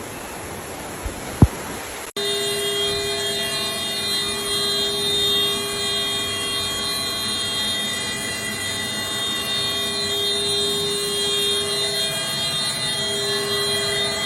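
A steady, even noise, then, after an abrupt cut about two seconds in, a continuous warning tone made of several steady pitches that sounds without a break.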